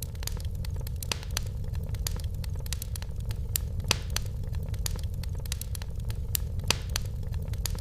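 Fireplace fire crackling, with irregular sharp pops several times a second over a steady low rumble.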